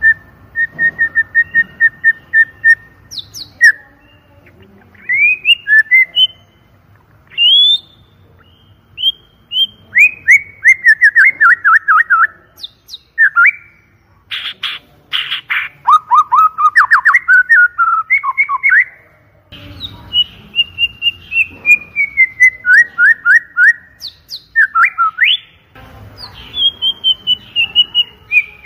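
White-rumped shama (murai batu) singing loudly: clear whistled phrases that change from one to the next, with runs of rapid repeated notes, several series that slide down in pitch, and a few harsh notes about halfway through.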